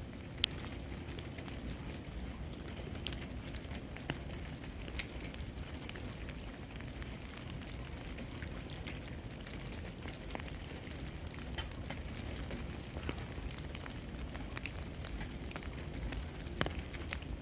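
Ice-coated tree branches thawing, with meltwater and small bits of ice dripping and dropping in scattered, irregular ticks over a steady low rumble.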